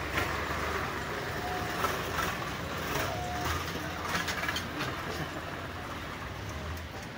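Steady low rumble of tractor diesel engines running, with faint distant voices.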